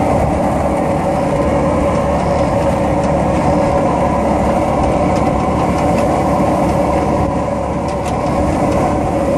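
Steady running noise of a pickup truck driving along a street: engine and road noise, with a skateboard rolling on the asphalt close behind it.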